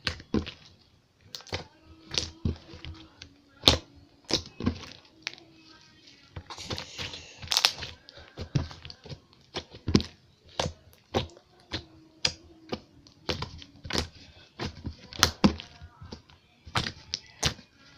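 Slime being squeezed and poked by hand, giving off a quick irregular run of sticky clicks and pops as trapped air bubbles burst.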